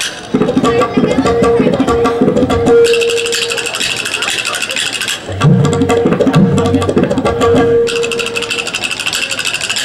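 Tabla and kartal playing together in a fast rhythmic duet: the tabla's ringing treble drum and deep bass-drum strokes, with the bright clacking of the wooden kartal clappers coming in and out in phrases.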